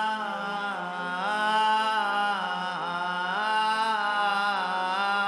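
A single voice singing long wordless notes that slide and waver in pitch, the opening of a Tamil mourning song.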